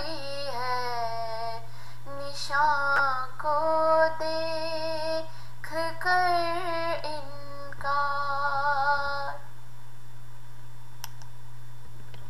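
A high female voice singing an Urdu nazm unaccompanied, drawing out the final line in long held notes with a wavering pitch, ending about nine seconds in. A steady low hum runs underneath.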